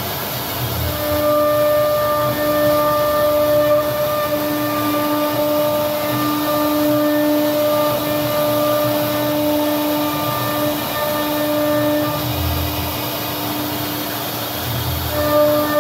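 CNC router spindle running at a steady high speed, a constant whine with overtones over the hiss of the bit cutting a relief into a solid wood door panel. The whine dips out briefly now and then as the cutting load changes.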